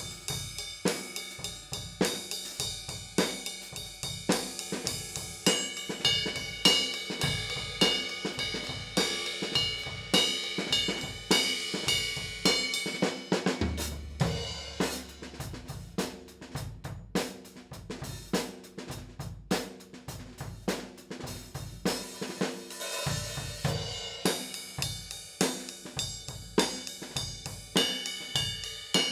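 Drum kit played in a steady groove, showing off Paiste PST 3 cymbals: hi-hat and ringing cymbals over kick and snare drum strikes.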